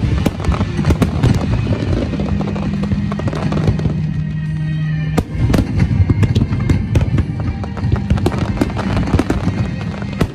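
Aerial firework shells bursting in rapid succession: a dense run of sharp bangs and crackles, with music playing underneath. A held low note sounds from about two seconds in and is cut off at about five seconds by a fresh, louder volley of bursts.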